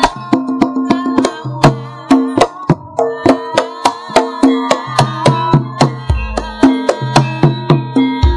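Javanese gamelan ensemble with a female sindhen singing over it: a wavering sung line over ringing metallophone tones and sharp drum strokes about three to four a second, with a deep low stroke about six seconds in.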